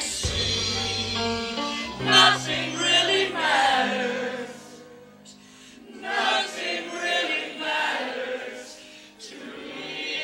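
A group of young voices singing together, dropping to a lull about halfway through before picking up again.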